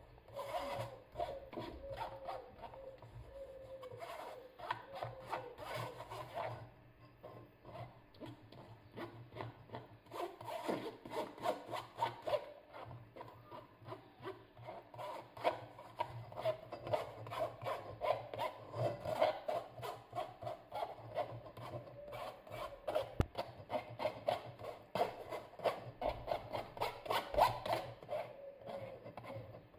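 Metal spoon scraping and pressing thick apricot purée through a stainless-steel mesh sieve in quick, repeated rasping strokes, metal rubbing on the wire mesh.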